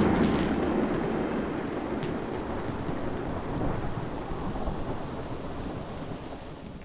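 Low rumbling noise from the closing soundtrack under the logo animation, fading steadily and cutting off at the end.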